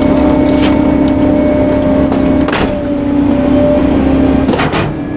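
Rear-loader garbage truck's hydraulic packer running with a steady hum of engine and hydraulic pump as the sweep blade comes down over wooden furniture in the hopper, with a few sharp knocks.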